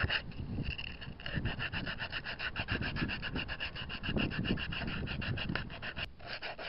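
Sandpaper rubbed by hand in rapid back-and-forth strokes over the handle of a kuksa carved from hard, long-dried oak burl, several even strokes a second. The strokes break off briefly near the end.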